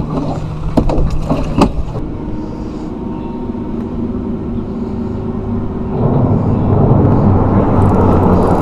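A few sharp knocks about a second in as a crappie goes into a plastic cooler and the lid is shut, over a steady low mechanical hum that grows into a louder rumble about six seconds in.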